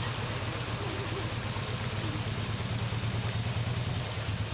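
Waterfall's steady rush of falling water, with a low steady hum underneath.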